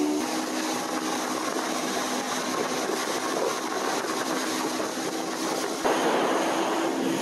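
Motorboat running at speed: a steady engine drone under the rush of wind and water off the hull. About six seconds in, the wind and spray noise jumps louder.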